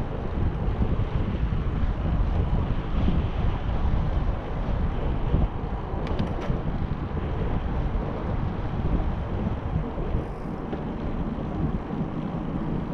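Wind buffeting the microphone of a camera on a moving bicycle, a steady low rush of noise, with a few faint ticks about six seconds in.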